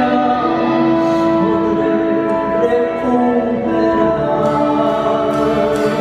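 A woman singing a slow tango song over an orchestra with violins, in long held notes.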